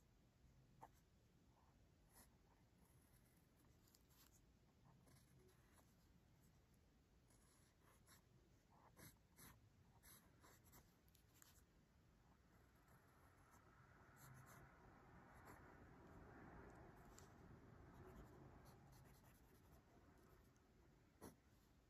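Faint scratching of a Pentel EnerGize mechanical pencil's graphite on paper, drawn in short hatching strokes. It grows louder for several seconds past the middle, with a few light ticks.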